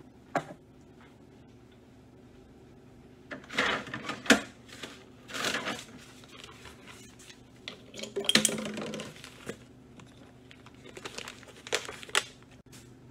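Scattered kitchen handling noises: rustling and crinkling of packaging with sharp clicks and knocks, in short bursts with quieter gaps between.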